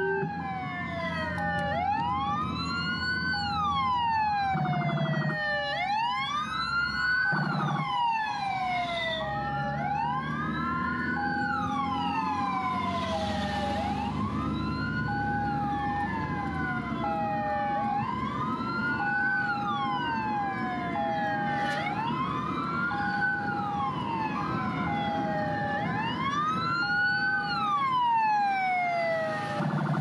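Ambulance sirens: a wailing sweep that rises quickly and falls more slowly about every two seconds, layered with a steady two-tone hi-lo siren alternating between two pitches, over a low vehicle rumble.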